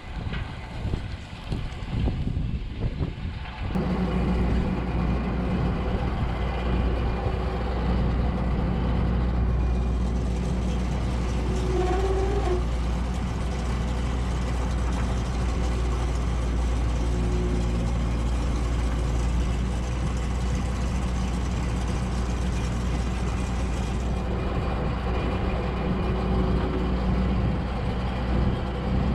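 Wind buffeting the microphone, then about four seconds in the diesel engine of a John Deere 955 combine harvester starts running steadily nearby, with a brief higher tone about twelve seconds in.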